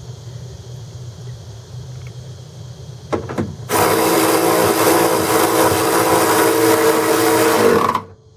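Cordless ratchet (Earthquake XT 3/8-inch) triggered in two short blips, then run steadily for about four seconds, its motor and gears whining loudly as it spins a fender bolt, and stopping suddenly.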